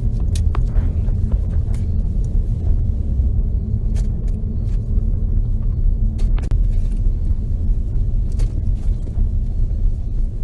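Steady low rumble of a running vehicle, with a few sharp clicks scattered through it.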